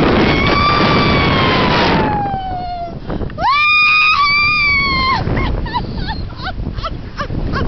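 A person on a paraglider screaming: one long high scream that slides down in pitch, a second held scream, then several short yelps. Steady wind rushes on the microphone underneath.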